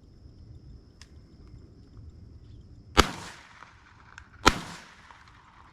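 Two shotgun shots at a dove, about a second and a half apart, each followed by a short rolling echo; the bird is down.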